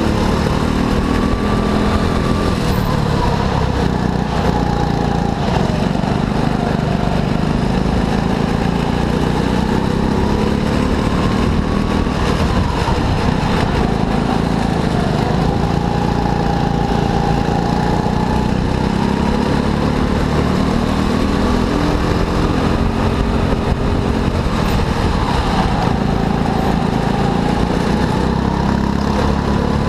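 Go-kart engine running at racing pace, its pitch rising as it accelerates and dropping off for corners, again and again.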